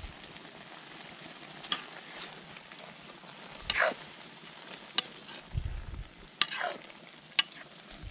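Pieces of frog sizzling in a metal frying pan over a wood fire while a metal spatula stirs them, scraping and clinking against the pan about five times over a steady low sizzle.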